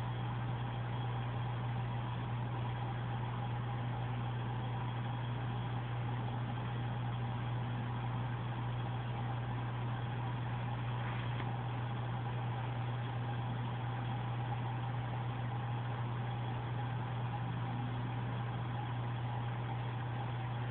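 Steady, unchanging low machine hum with a fainter higher tone above it.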